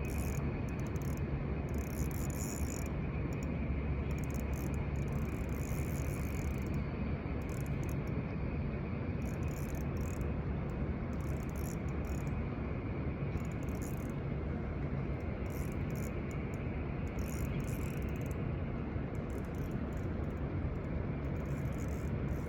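Steady low outdoor rumble with a faint hum, with scattered faint high ticks and rustles throughout.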